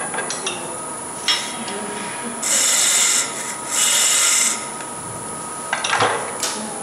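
Sandpaper rubbing against a turned wooden goblet on the lathe, in two strokes of about a second each.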